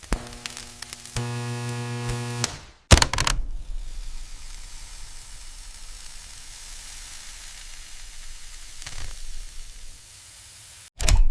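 A steady electric hum, then a sudden loud bang about three seconds in, followed by a long hiss like sizzling that slowly fades; a few sharp clicks come near the end.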